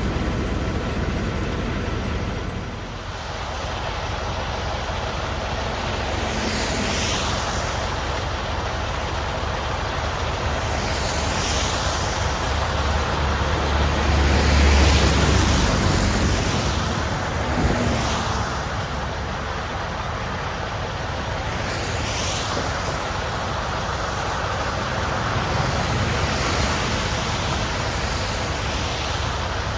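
Semi truck driving on the highway: steady engine and road noise, swelling to a louder low rumble around the middle, with a few brief swishes.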